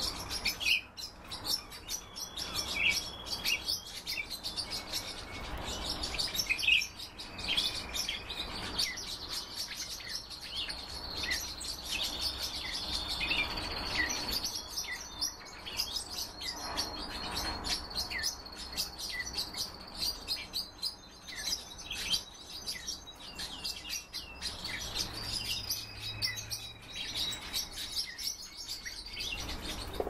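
Caged finches, siskins among them, chirping and twittering over one another: a continual run of short, high calls and trills with no break.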